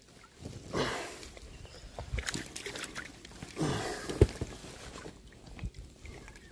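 Landing net and fishing rod being handled on a float tube: rustling noises and small clicks, with a sharp knock a little after four seconds in.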